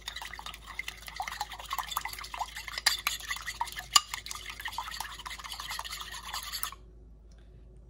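A raw egg being beaten quickly in a bowl, with rapid clicking and scraping of the utensil against the bowl. The beating stops suddenly near the end.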